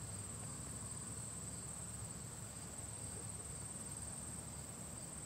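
Steady high-pitched chorus of singing insects, such as crickets, holding one unbroken tone, with a faint low rumble underneath.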